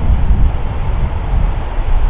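Luxair Dash 8-Q400 turboprop's twin engines and propellers running as the airliner rolls along the runway: a loud, deep rumble that swells and dips.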